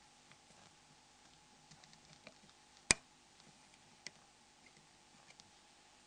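Faint scattered ticks and taps of a metal dental pick working on a Nokia N73's display shield, with one sharp click about three seconds in and a smaller one a second later.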